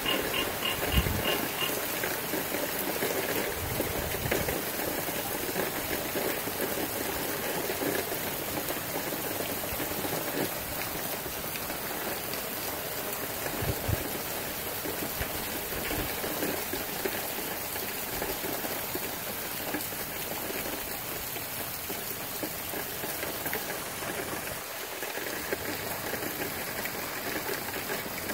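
Steady heavy rain and wind of a tropical storm, with a few short low thumps.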